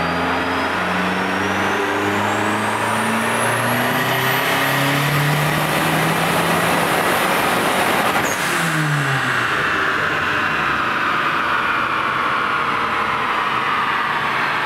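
Dodge SRT-4's turbocharged 2.4-litre four-cylinder making a full-throttle pull on a chassis dyno: the engine note climbs steadily for about eight seconds with a high whistle rising alongside it. Then the throttle is shut abruptly and the engine and spinning rollers wind down.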